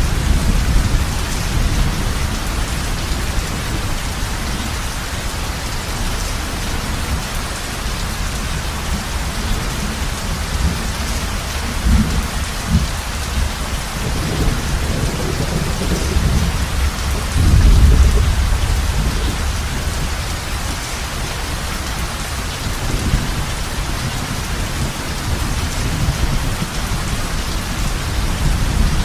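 Heavy rain falling steadily on a roof, with low rumbles of thunder rolling under it, the loudest about eighteen seconds in and a shorter one about twelve seconds in.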